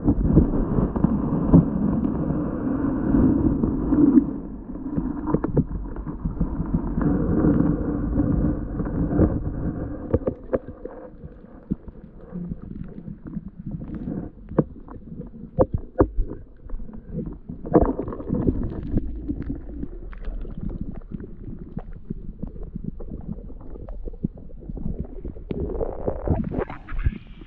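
Muffled underwater sound from an action camera's microphone submerged in a shallow river: low rumbling water movement with many scattered knocks and clicks. Near the end the camera rises to the surface and the sound turns brighter and more open.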